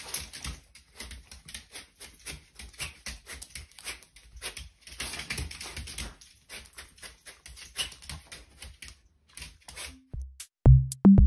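A small dog's claws clicking and tapping quickly and unevenly on a tile floor as it hops about on its hind legs. About ten seconds in, a music track with a heavy drum-machine beat starts.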